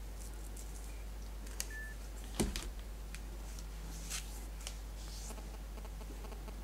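Quiet room tone with a steady low hum, broken by a few scattered light clicks and one louder knock about two and a half seconds in.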